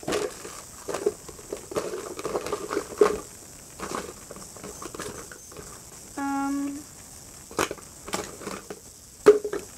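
Slime being squished and worked by hand along with plastic slime containers: scattered crackles, small pops and sharp clicks. A short, steady pitched tone sounds once, a little past the middle.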